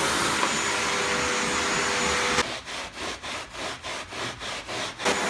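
Vacuum cleaner running steadily on a carpet, cut off abruptly after about two and a half seconds. Then a sponge scrubs foamy carpet shampoo into the pile in quick rubbing strokes, about four a second. The vacuum cleaner comes back near the end.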